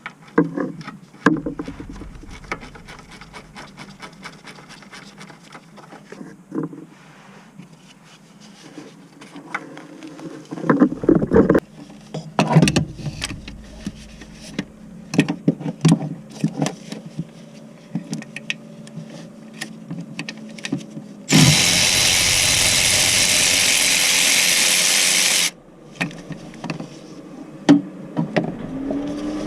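Hand-tool work on a car: scattered metal clicks and knocks, then a loud steady hiss lasting about four seconds, a little over twenty seconds in, followed by a few more clicks.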